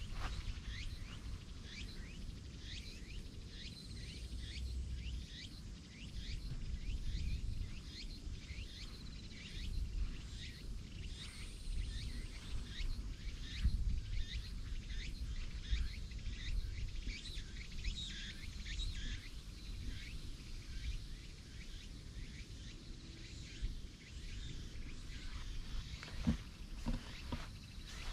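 Outdoor ambience: wind rumbling on the microphone, with small birds chirping in a long series of short, high, falling calls that thin out toward the end.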